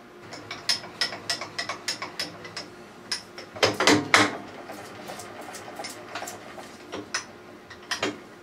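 Irregular metallic clicks and knocks from a milling machine table being wound across by hand to bring the vise-held workpiece under the end mill, with a louder cluster of knocks about four seconds in.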